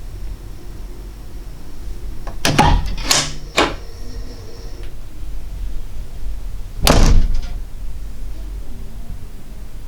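A door being worked: three quick clicks and knocks from the handle and latch about two and a half to three and a half seconds in, then a single louder knock as it shuts, about seven seconds in.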